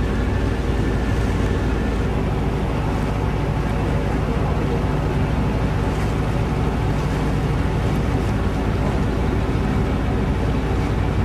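Passenger ferry's engine running with a steady, even hum, heard from the deck, over the rush of water along the hull and wind buffeting the microphone.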